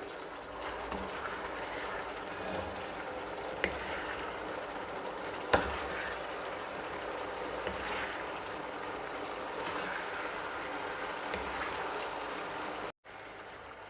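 Thick chicken shashlik gravy bubbling steadily in a karahi, with two sharp clicks about four and five and a half seconds in; it cuts off abruptly near the end.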